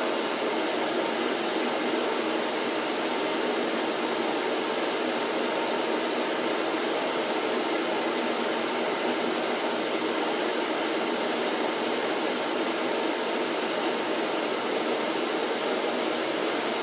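Vacuum cleaner running at a steady pitch, an even motor whir and rush of air that does not change.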